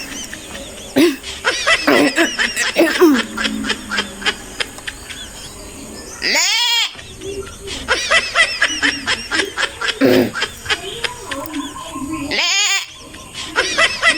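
Goat bleating: two long wavering bleats, about six seconds in and about twelve seconds in, with another starting at the very end. Short clicks and giggle-like sounds fill the gaps.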